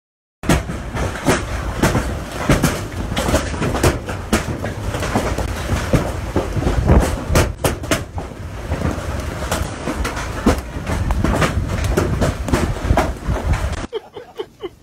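Violent storm wind roaring and buffeting the microphone: a loud, continuous rumble broken by many short cracks and thumps. It starts abruptly just after the beginning and falls away sharply near the end.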